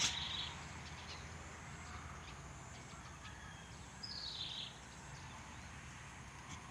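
Faint rural outdoor ambience: a steady soft hiss, with a bird's short high call sliding down in pitch at the very start and again about four seconds in.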